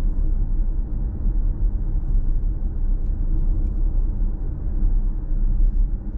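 Steady low rumble of tyre and road noise heard inside the cabin of a sound-deadened Genesis GV70 cruising at about 60 km/h.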